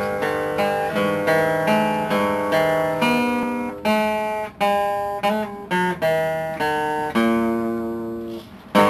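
Acoustic guitar strumming chords in a steady rhythm, each chord ringing and fading before the next. The chords change several times, with a short break near the end and then a fresh strum.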